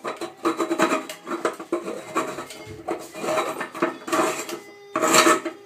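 3D-printed PLA lamp shade being turned on its printed plastic threads against the light fitting: irregular scraping and clicking of plastic on plastic, with the loudest rasps about four and five seconds in.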